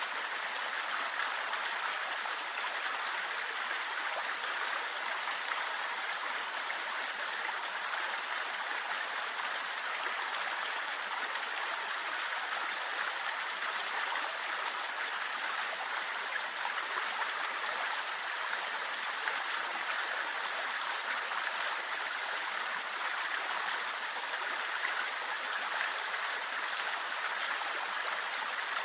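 Waterfall water rushing with a steady, even rush that does not change.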